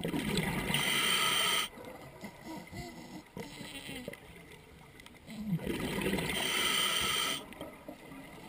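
Scuba diver breathing through a regulator underwater: two breaths about five seconds apart, each a rush of hiss and bubbling that lasts one and a half to two seconds.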